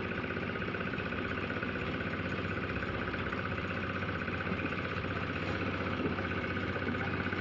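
An engine running steadily at an even idle, with a low hum and a fast, even pulsing.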